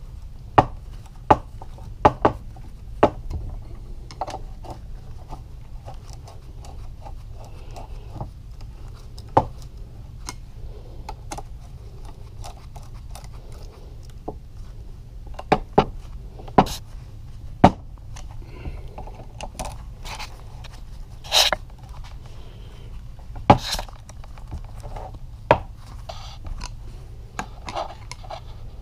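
Scattered sharp clicks and knocks of hand tools and metal parts while the two halves of a Yamaha YZ250 two-stroke crankcase are drawn together bolt by bolt, over a steady low hum.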